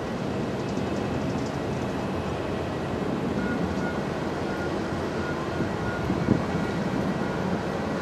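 Boeing 737-800's CFM56 jet engines at idle thrust as the airliner taxis after landing, a steady rumble.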